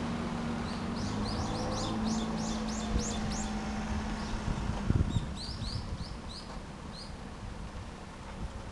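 A small bird calling in two quick runs of high, sweeping chirps, the first a rapid series of about a dozen notes, the second shorter. Under the first half runs a steady low hum, and about five seconds in there is a low thump.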